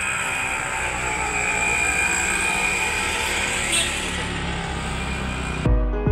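Steady outdoor noise of passing vehicles, a continuous wash with no clear events. Near the end it cuts abruptly to background music with a heavy bass beat.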